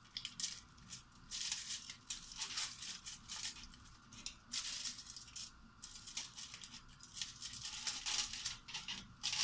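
Aluminium foil covering a leche flan mould crinkling and rustling in irregular bursts as hands press on it and shift the mould about in a stainless steel steamer tray.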